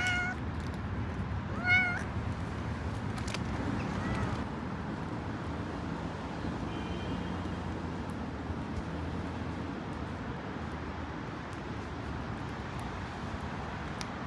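A cat meowing: two short meows within the first two seconds, the second the loudest, then a fainter drawn-out meow about four seconds in, over a steady low background hum.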